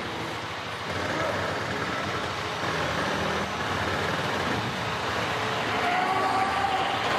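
Semi-truck being heaved up and tipped onto its side: a steady rumbling noise, with a few faint held tones coming in near the end.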